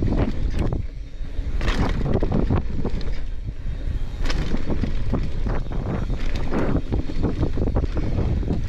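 Mountain bike riding fast down a loose dirt trail, heard from a camera on the rider: tyres crunching over gravel and the bike rattling, with wind buffeting the microphone. It goes quieter for a moment about a second in as the bike clears a jump, then a sharp clatter on landing, and another sharp clatter a few seconds later.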